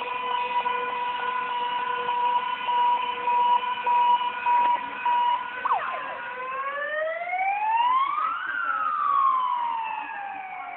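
Fire engine siren on a Star 244 on an emergency run. It holds a steady tone, then about halfway through switches to a wail that rises for a couple of seconds and slowly falls.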